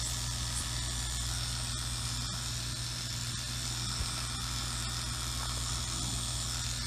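Electric clippers buzzing steadily as they shave the hair on a dog's leg, clearing the site for an IV catheter.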